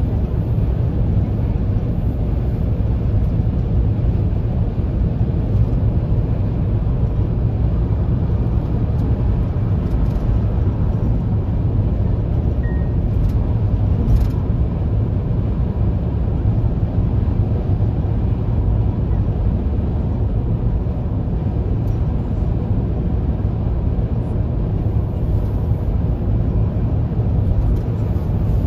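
Steady low road rumble inside the cabin of a Daihatsu Taft cruising on an expressway: tyre and engine noise.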